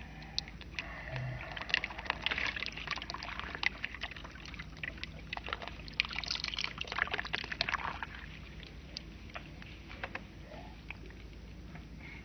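Water poured from a small plastic cup, trickling and splashing into a plastic tub of wet soil, with a crackle of fine ticks. It comes in two spells, from about one and a half seconds in and again from about six to eight seconds, then thins to a few scattered ticks.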